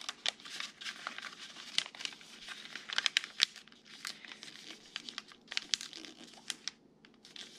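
Sheet of paper rustling and crackling as it is folded by hand and the crease pressed flat, with many sharp crinkles; it goes quieter briefly near the end.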